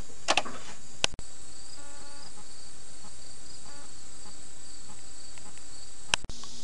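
Insects trilling steadily and high-pitched in the yard, with a few short clicks about a second in and one more near the end.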